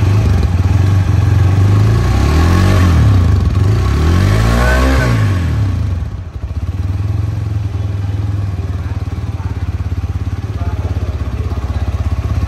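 Hero Thriller 160R 4V's single-cylinder engine idling, blipped up and down in pitch twice in the first half, then settling back to a steady idle.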